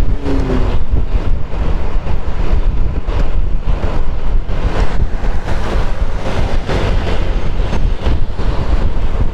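Loud, gusting wind noise on the microphone of a motor scooter rider moving at road speed, with the ride's engine and road noise mixed in underneath.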